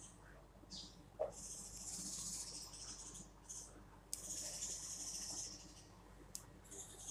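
Kitchen knife cutting through a cucumber on a wooden chopping board: two drawn-out crisp slicing sounds of about a second and a half each, with short sharp knocks of the blade against the board.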